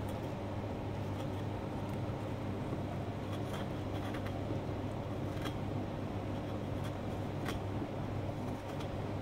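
Steady low mechanical hum, like a room fan or air conditioner, with a few scattered small clicks and scrapes of a carving tool cutting into pumpkin flesh.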